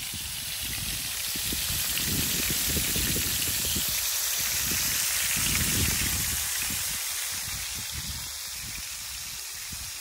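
Sardines sizzling on a grill over a wood fire: a steady hiss that swells a little in the middle, over an uneven low rumble.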